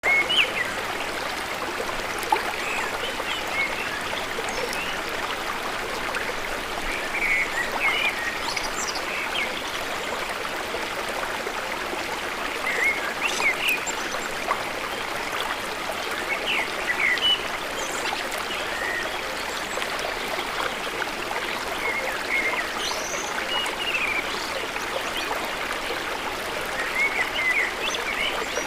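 Parrots calling: many short, scattered chirps and squeaks over a steady rushing noise like running water.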